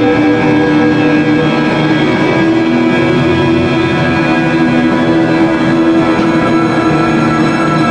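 Small band playing instrumental music live on guitars and double bass: a dense, steady texture of long held notes, with a new high note coming in about six seconds in.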